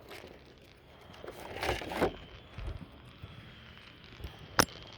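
Distant fireworks going off: faint crackling and popping, with one sharp loud bang about four and a half seconds in.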